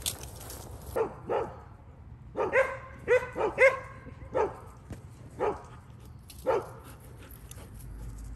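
Dog barking in a string of short barks, about ten in all, coming quickest in a run near the middle.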